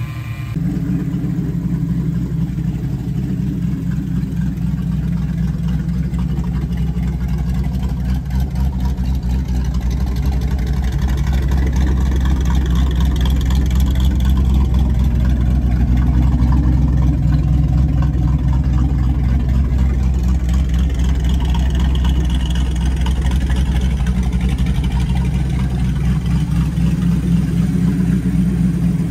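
Fox-body Ford Mustang's V8 engine idling steadily, its exhaust note slightly louder through the middle of the clip.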